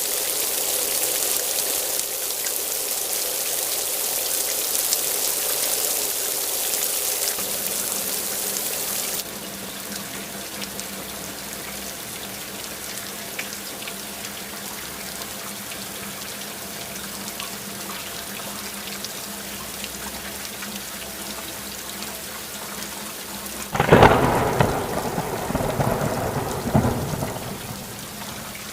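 Steady rain hissing, heavy at first, then turning abruptly lighter about nine seconds in. Near the end a loud thunderclap breaks in and rumbles off over a few seconds.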